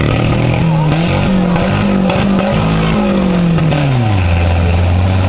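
Mud bog truck's engine revving hard, its pitch rising and falling as it churns through the mud pit, then dropping to a lower steady drone about four seconds in.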